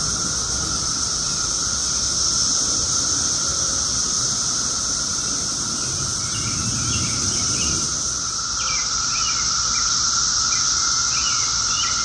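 Chorus of Brood X periodical (17-year) cicadas: a loud, unbroken drone with a steady high-pitched whine over a lower steady tone. Birds chirp faintly over it from about halfway.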